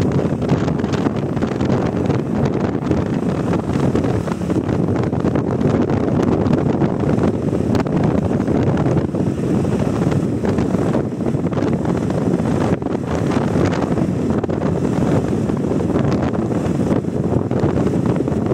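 Loud, steady wind buffeting the microphone: a continuous rushing rumble that flickers in strength throughout.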